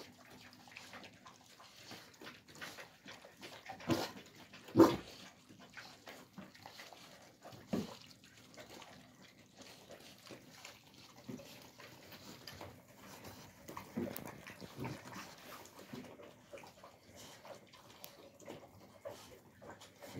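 Alabai puppies eating from metal bowls: wet chewing, slurping and lapping, broken by a few short, sharp knocks, the loudest about five seconds in.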